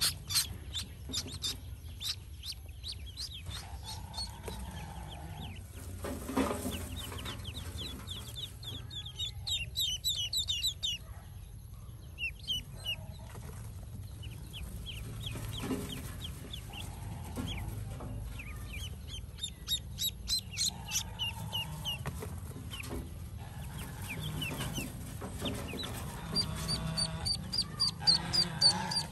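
Newly hatched ducklings peeping: runs of short, high peeps that come and go, busiest near the end.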